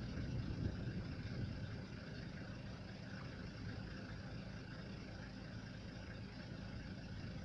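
A vehicle engine idling with a steady low rumble, a little louder in the first couple of seconds and then even.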